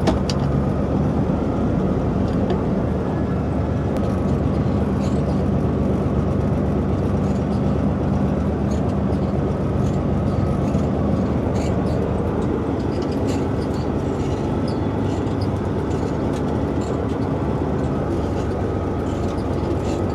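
Semi-truck's diesel engine running steadily under way at low speed, with scattered rattles and clicks from the truck and trailer rolling over rough unpaved ground.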